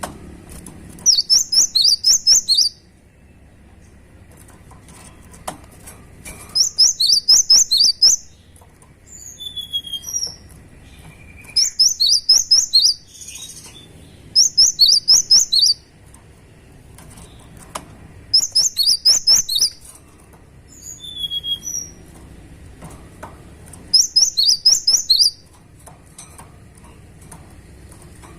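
Cinereous tit (gelatik batu) singing: six bursts of quick, high repeated chirping notes, each about a second and a half long and a few seconds apart, with a few single whistled notes in between.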